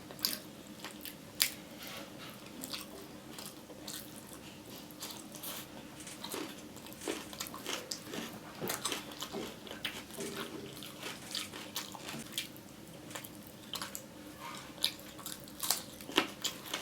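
Close-miked eating: chewing, biting and wet mouth clicks and smacks at an uneven pace, over a faint steady hum.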